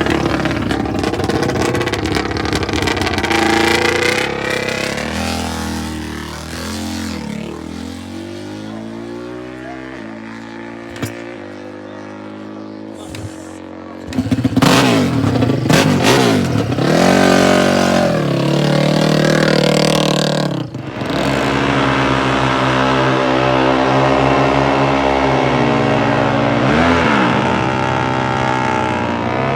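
Four-stroke dirt bike engines revving, the pitch falling away and the sound dropping quieter partway through. About halfway in, a sudden loud burst of revving starts, with the pitch climbing and falling and staying strong to the end.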